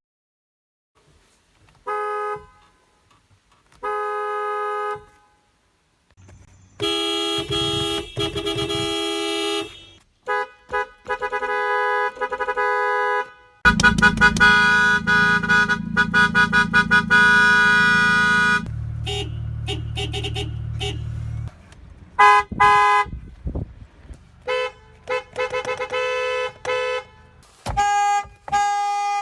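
A series of car horn blasts from several vehicles: two short beeps, a long blast, a run of quick repeated taps, a long held blast over a low drone, then more short, rapid honks near the end.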